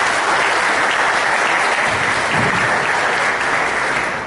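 Audience applauding: steady, dense clapping that begins to die away near the end.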